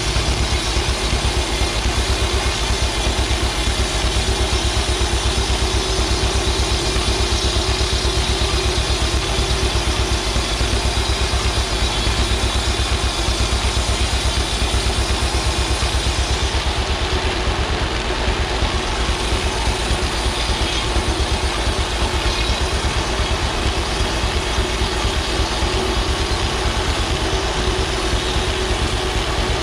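Farm tractor engine running steadily with an even firing beat, driving a clapboard mill, with a steady mechanical noise from the mill's machinery over it.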